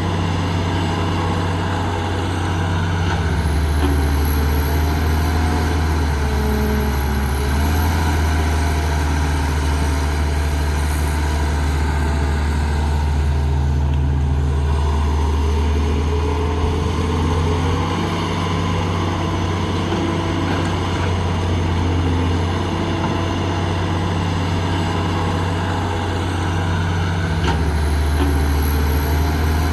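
Heavy diesel construction machine engine running, its pitch stepping up and down every few seconds as the load changes, with a faint high whine that rises and falls.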